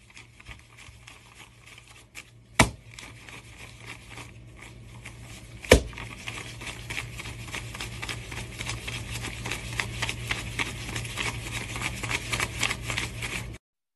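Paper banknotes being counted out by hand, a rapid run of papery flicks and rustles that grows quicker and louder, with two sharp snaps a few seconds apart. A steady low hum runs underneath, and the sound cuts off suddenly near the end.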